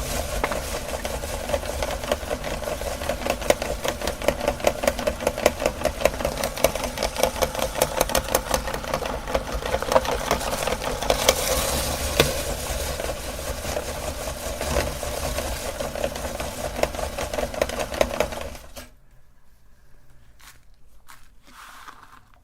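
Electric meat grinder running and grinding colourful cookies, a steady motor noise with a rapid, even clatter. It cuts off suddenly about nineteen seconds in, leaving only a few faint clicks.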